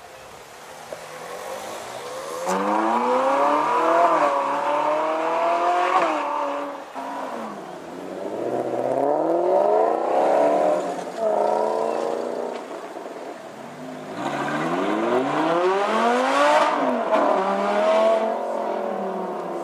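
A sports car engine accelerating hard three times, its pitch climbing steeply and then dropping back each time.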